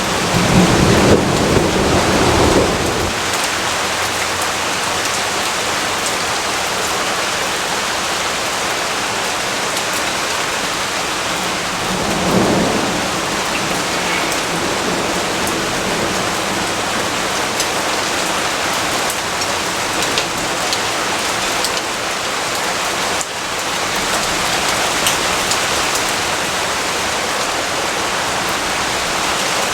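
Steady rain falling, with a low rumble of thunder over the first few seconds and a shorter one about twelve seconds in.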